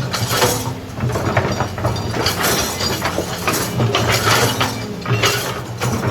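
Excavator diesel engine running steadily under irregular metallic clanking and clattering.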